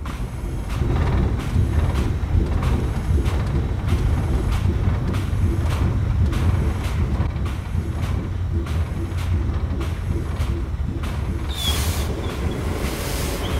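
Designed heavy-machinery sound for a steam turbine: a deep steady rumble with regular mechanical knocks about twice a second. A burst of steam hiss comes in about three-quarters of the way through.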